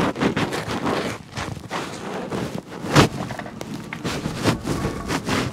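Irregular scuffing and knocking as a large propeller is worked by hand off its tapered propeller shaft, with one sharp knock about three seconds in.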